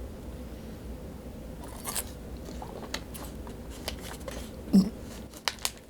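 Small mouth noises from a person close to the microphone in a quiet small room: scattered clicks and lip smacks, with a short, louder low throat sound just before five seconds in.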